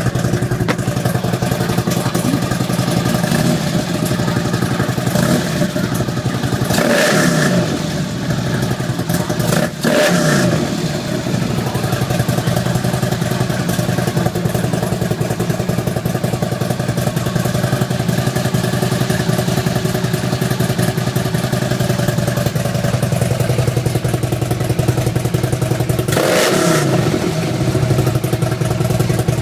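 A 2012 Harley-Davidson CVO Ultra Classic's Twin Cam 110 V-twin idling through a Fullsac X-pipe exhaust with 2¼-inch cores. The rider blips the throttle three times: about seven seconds in, again about three seconds later, and once more near the end, each rev rising and falling back to idle.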